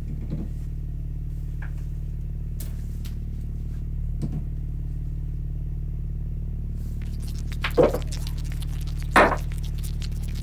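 Steady low drone of background music, with a few short knocks as plastic toiletry bottles are set down on a bathroom sink counter; the two loudest knocks come a second and a half apart near the end.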